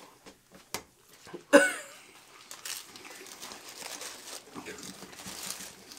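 Paper taco wrappers crinkling and rustling as hard-shell tacos are handled and unwrapped, an irregular run of small rustles and ticks from about two and a half seconds in. A click comes just under a second in, and a short vocal sound about a second and a half in.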